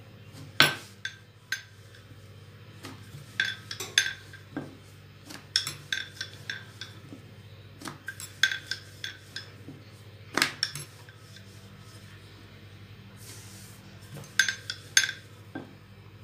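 Wooden rolling pin knocking and clicking against a stone kitchen counter as wheat dough is rolled out, in irregular sharp taps with a quieter stretch about two-thirds of the way through.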